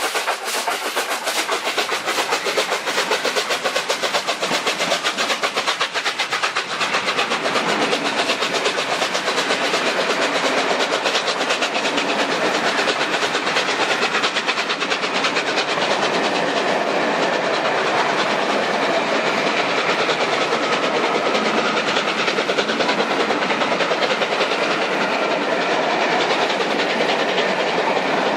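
Steam-hauled passenger train running past, with rapid wheel clicks over the rail joints in the first several seconds, then a steady rolling noise of the coaches.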